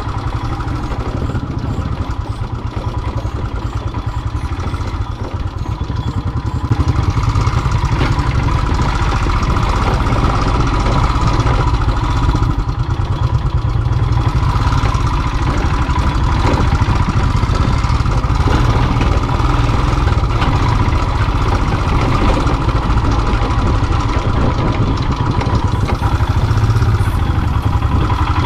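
Single-cylinder Royal Enfield motorcycle engine running while riding, getting louder about seven seconds in.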